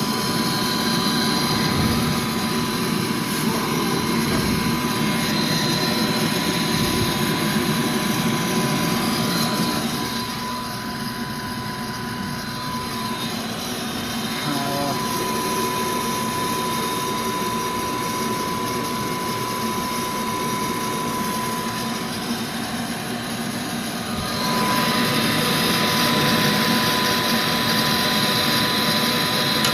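Gas furnace running with a steady fan drone and a thin, constant whine. The noise drops lower about ten seconds in and comes back up near the end.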